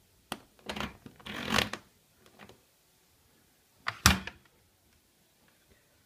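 Handling noises from a front-loading washing machine's door being opened by hand: a few clicks and short rubbing scrapes, then a sharp double click about four seconds in.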